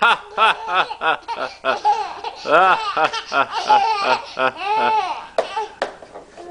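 Baby laughing in a run of short peals, a few each second, with longer peals near the middle and again about five seconds in.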